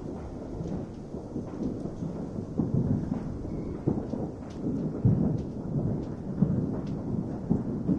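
Fireworks far off: a continuous rolling rumble of booms, with louder thuds every second or so and a few faint sharp pops.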